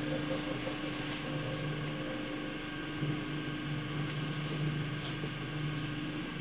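Two-roll silicone mixing mill running, its drive motor and gear reducer giving a steady hum with a couple of held tones, with a few faint clicks.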